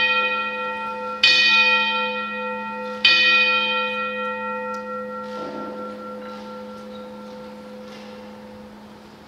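A church bell, struck twice about two seconds apart. Each stroke rings out and fades slowly, over a steady low hum.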